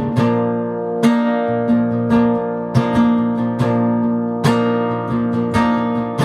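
Acoustic guitar strumming and picking chords in an instrumental passage, with ringing notes and a chord struck about every half second.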